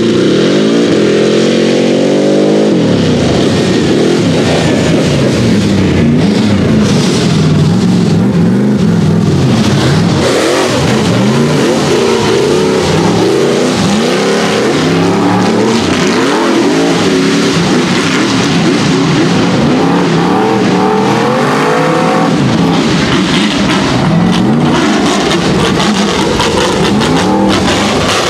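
A rock bouncer buggy's engine revving hard as it climbs a steep dirt hill. It rises in pitch over the first few seconds, then surges up and down again and again as the throttle is worked.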